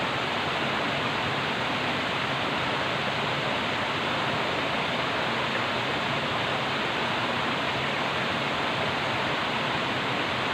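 Flowing water running in a steady, even rush with no breaks or changes.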